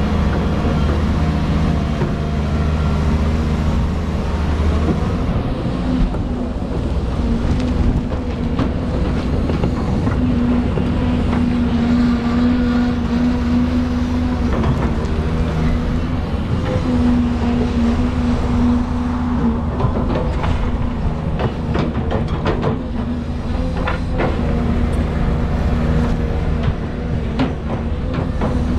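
Volvo EC220 crawler excavator's diesel engine running under hydraulic load as the machine slews and works its boom and bucket, the engine note swelling and easing. Scattered clanks and knocks join in from about twenty seconds in.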